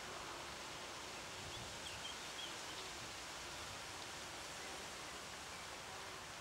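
Faint, steady outdoor background of breeze and rustling foliage, with a few faint high chirps about two seconds in.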